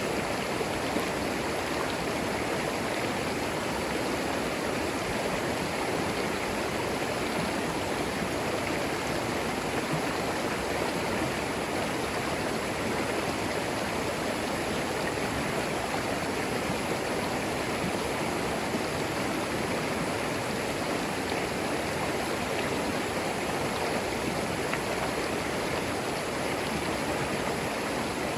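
Shallow creek flowing steadily over moss-covered stones, a continuous even rush of water.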